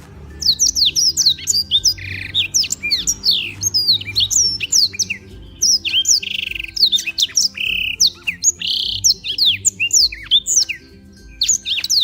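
Black-throated canary (blackthroat) singing continuously: a fast, varied song of sharp down-slurred chirps mixed with several buzzy trills, breaking off briefly near the end and then resuming.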